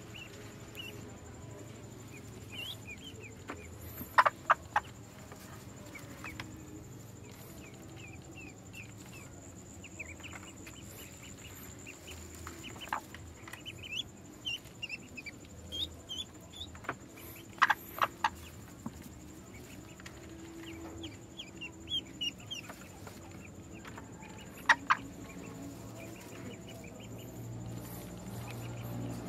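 A broody hen clucking low in her nest while newly hatched ducklings peep in many short, high chirps. A few sharp knocks or taps now and then stand out as the loudest sounds.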